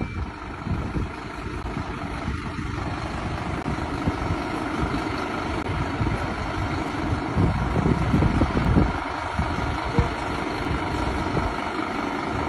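Scania fire engine's diesel engine idling with a steady rumble, with heavier low rumbling about seven to nine seconds in.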